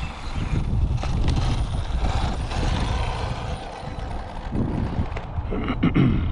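Wind buffeting the microphone in a steady low rumble, with a few sharp knocks near the end.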